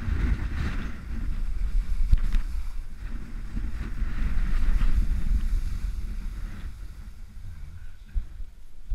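Wind buffeting a GoPro's microphone as a skier runs downhill, a low rumble with the faint hiss of skis on snow; it eases off near the end as the skier slows.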